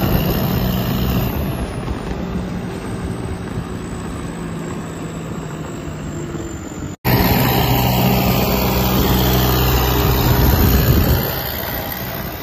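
Swaraj 855 FE tractor's three-cylinder diesel engine running steadily under way, heard from a vehicle driving alongside, with road and wind noise. The sound cuts out for an instant about halfway through and comes back louder, then drops again near the end.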